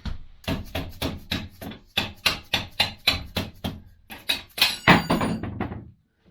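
Rapid hammer blows, about four a second, driving out a Honda Grom's seized rear axle, which is stuck with corrosion from a lack of anti-seize. The blows pause briefly partway through and hit hardest near the end, with a faint metallic ring.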